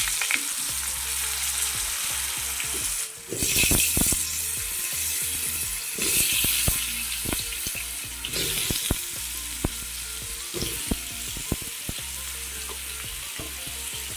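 Kohlrabi and potato pieces sizzling in hot oil in a steel kadai as more pieces are dropped in by hand, with short knocks of pieces landing on the metal pan. The sizzle swells with each new handful, about three, six and eight seconds in.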